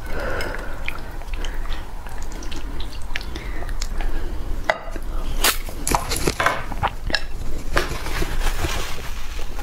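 Chopsticks and spoons clicking and scraping against bowls and plates as food is stirred and eaten, with short sharp clicks scattered unevenly throughout.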